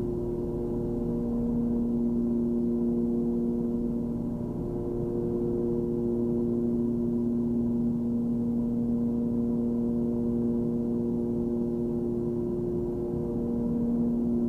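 Cessna 340's twin piston engines and propellers droning steadily in cruise, a constant low hum of a few steady tones.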